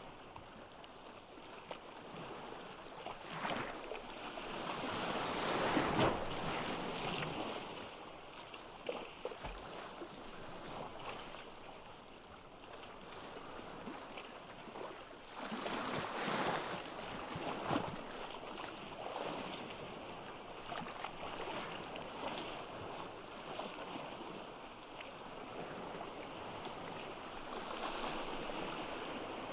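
Ocean waves on a beach: surf washing in and drawing back in a steady wash, with two bigger waves breaking, one around five seconds in and another around sixteen seconds in.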